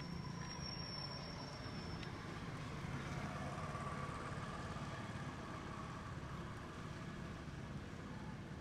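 A steady low engine hum that grows a little louder about three seconds in and then eases off.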